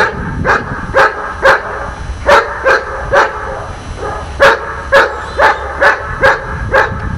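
A dog barking in a steady, insistent run, about two sharp barks a second with a couple of slightly longer gaps.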